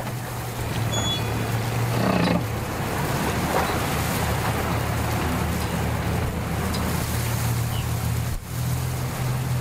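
Suzuki outboard motor idling with a steady low hum as the boat moves slowly away from the dock, with wind on the microphone.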